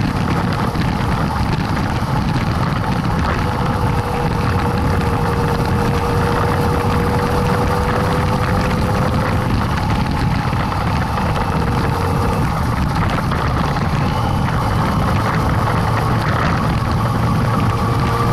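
Motorcycle engine running at steady road speed on a dirt road, with wind and tyre noise on a bike-mounted microphone; a steady whine in the engine note shifts slightly in pitch a few times.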